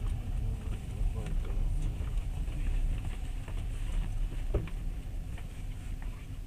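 Low, steady rumble inside a passenger train carriage rolling slowly alongside a station platform, with scattered clicks and knocks, the sharpest about four and a half seconds in.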